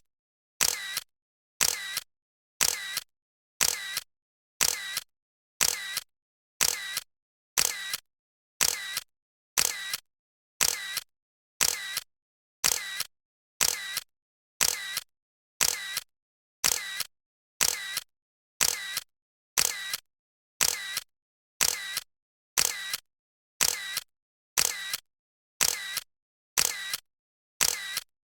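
Camera shutter clicking over and over, about once a second. Each release is a quick double click with dead silence between the clicks.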